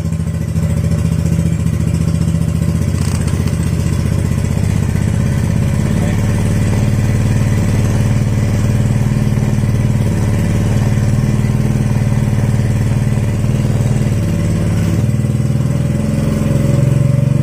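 Yamaha Mio scooter's single-cylinder four-stroke engine running steadily on its test run after a full rebuild, a little louder near the end.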